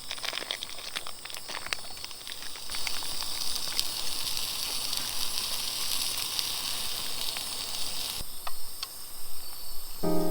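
Sizzling and hissing over a campfire, with scattered crackles. The hiss grows stronger about three seconds in and cuts off suddenly near the end, leaving a few crackles.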